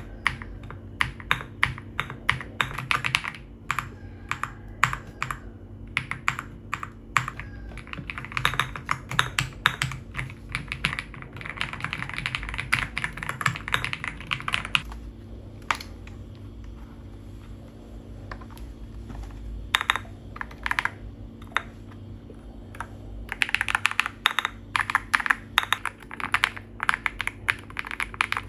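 Typing on a Dark Alien K75 mechanical keyboard: fast runs of key clacks, thinning to scattered single keystrokes midway before quick typing resumes. A faint steady hum sits underneath.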